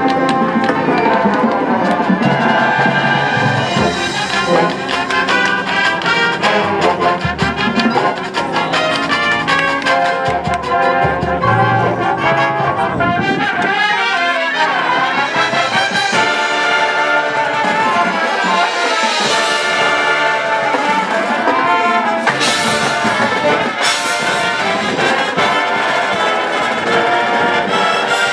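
Marching band playing a loud, full brass-led passage with sousaphones, saxophones and front-ensemble mallet percussion. The low bass drops away for several seconds about halfway through, then the full band sound returns.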